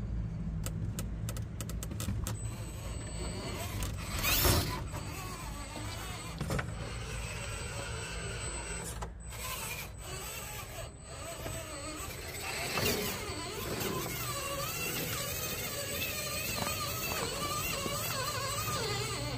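Traxxas TRX-4 RC crawler on a freshly rebuilt transmission, its small electric motor and gears whining as it crawls, with rapid clicks near the start and a louder knock about four seconds in.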